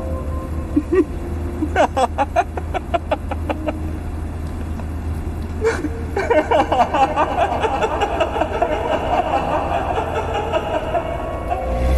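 A man laughing: a quick run of short laughs about two seconds in, then a longer laugh from about six seconds. Under it runs the steady low rumble of a car engine, heard inside the cabin.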